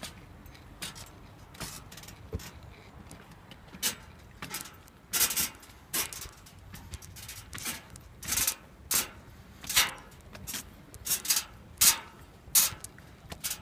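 Footsteps climbing steep perforated metal stairs: a run of short scuffing steps, about one to two a second, getting louder from about five seconds in.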